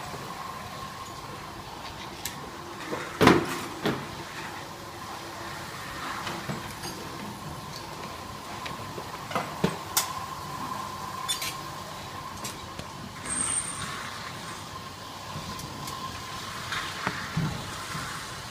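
Box folder-gluer machine running with a steady hum, broken now and then by sharp knocks and clicks. The loudest knock comes about three seconds in.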